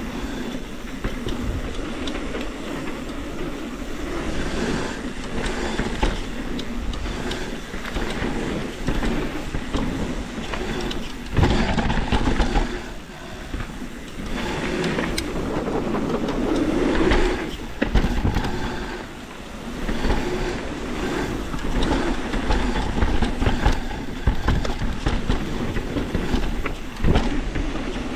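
Mountain bike riding down a rough, rocky dirt trail: tyres rolling over dirt and rock with the bike rattling all the while, and a few sharp knocks from hard hits, the loudest about eleven seconds in.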